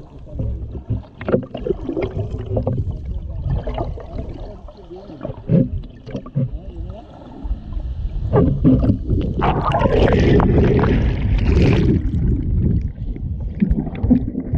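Underwater recording: a low water rumble with scattered clicks, gurgles and small warbling glides, swelling into a louder rush about eight seconds in that eases off again around twelve seconds.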